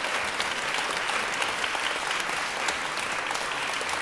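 Audience applauding steadily: many people clapping at once, with no music playing.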